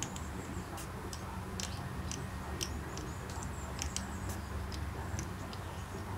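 Young hedgehog eating dry kibble from a bowl: irregular sharp crunching clicks, a few a second, over a low steady hum.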